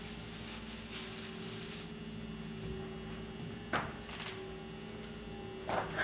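Steady electrical mains hum with background hiss, broken by two brief sharp sounds, one about four seconds in and a louder one near the end.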